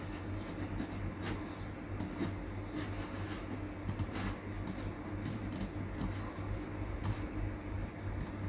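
Irregular sharp clicks and taps from working a laptop, over a steady low hum.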